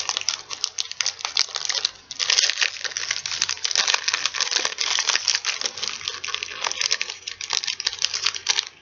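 Crinkling of a Reese's Peanut Butter Cups wrapper being handled and unwrapped: a dense run of crackles with a brief pause about two seconds in.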